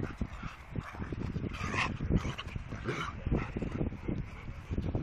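A cocker spaniel and a black-and-white mixed-breed dog play-fighting, with short barks and yips about two and three seconds in, over low thumps and scuffling.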